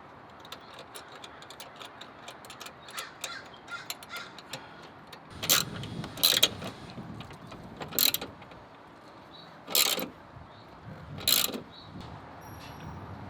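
Intake bracket and parts clicking and knocking as they are worked into place in a car's engine bay: a run of light clicks, then about five louder knocks in the second half.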